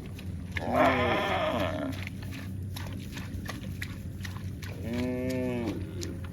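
Livestock calling twice: a short, rough, loud call about a second in, then a longer, cleaner call near the five-second mark that rises and falls in pitch.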